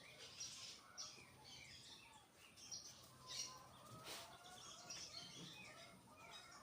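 Several birds chirping and calling faintly, with many short chirps and trills overlapping throughout.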